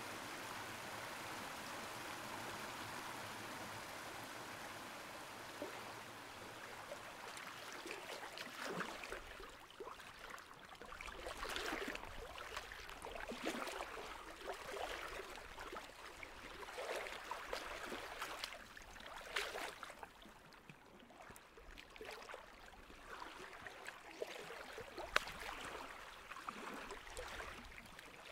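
Flowing water: a steady rush like a stream for the first several seconds, then irregular gurgles and splashes.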